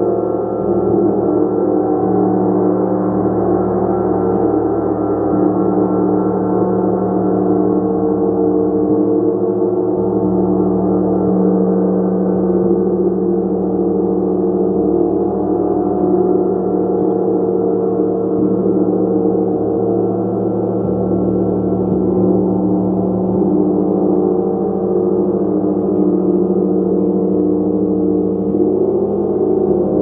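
A 36-inch gong played continuously, a dense sustained wash of many overlapping tones at a steady loudness. Its lower tones shift every few seconds.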